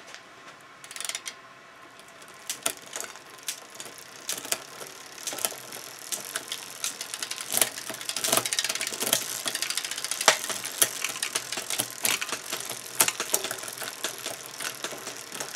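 Bicycle drivetrain running as the rear wheel spins: chain running over the rear cassette with rapid ticking and clicking, starting about a second in, with occasional louder clacks as the rear derailleur shifts between cogs. The shifting is being tested after the bent derailleur hanger was straightened, and seems to be working fine.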